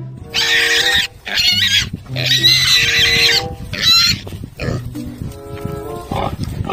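Pigs squealing, with four loud calls in the first four seconds and quieter sounds after, over background music.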